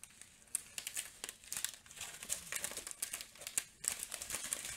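Small plastic baggies of diamond painting resin drills crinkling and rustling as they are handled, in irregular crackles and clicks.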